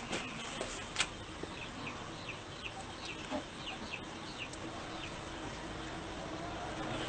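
Birds calling: a run of short, high, falling chirps in the middle, over a faint steady hum.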